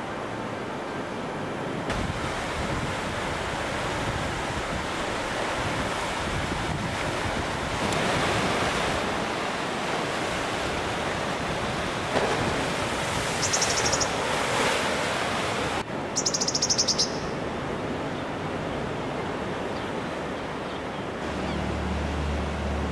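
Sea waves washing against a rocky shore, a steady surf noise that swells now and then, with some wind on the microphone. Twice, about halfway through, there is a short burst of rapid, high-pitched ticking, and a low hum sets in near the end.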